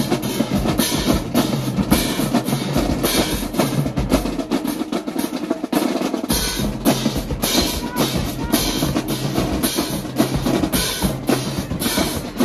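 Marching band drumline playing loud and fast: snare drums, bass drums and tenor drums with crash cymbals striking together.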